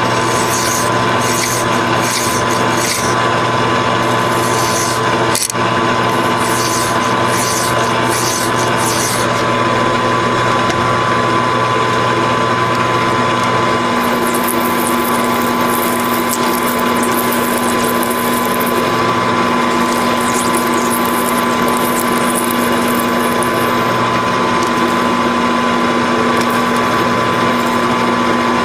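Grizzly G4003G metal lathe running steadily with a constant whine while a hand file is stroked across the spinning steel bolt, about two rasping strokes a second for the first nine seconds. About halfway through, the lathe's hum shifts and lighter hissing rubbing against the turning part comes and goes.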